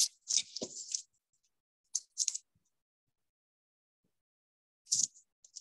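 A few short bursts of rustling and handling noise, with silence between them.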